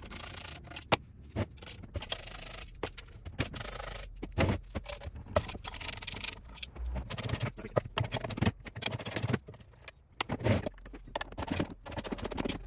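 Bolts on the face of a Waterway SMF pool pump motor being worked loose and backed out with a hand tool: repeated short metallic scraping strokes, with sharp clicks and knocks between them.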